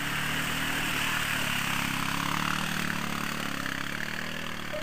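Quad bike (ATV) engine running under load through deep mud, its pitch rising and falling with the throttle, over a steady hiss.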